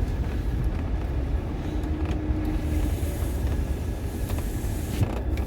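Car driving slowly: a steady low rumble of engine and tyres, with one short knock about five seconds in.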